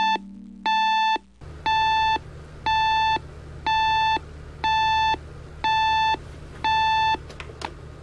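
Electronic alarm clock beeping: eight identical, shrill beeps of about half a second each, one a second, going off to wake the sleeper in the morning.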